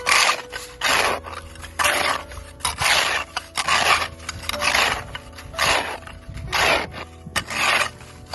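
Snow being scraped away in repeated hand strokes, about one a second, each a short rough scrape. Faint music plays underneath.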